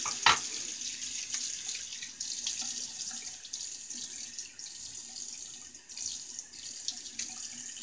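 Water running steadily from a tap into a sink for a rinse at the end of a wet shave, with one sharp knock about a third of a second in.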